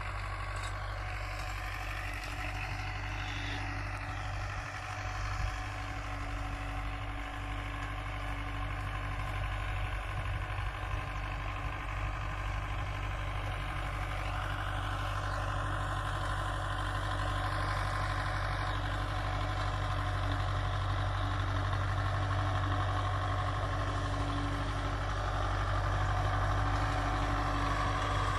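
Belarus 510 tractor's four-cylinder diesel engine running steadily under load as it pulls a tillage implement across the field, growing louder as the tractor approaches.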